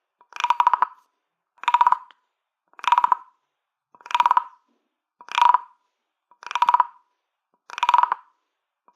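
Wooden toy croaking frog, a stick scraped along its ridged back, giving seven evenly spaced croaks. Each croak is a quick run of clicks lasting about half a second.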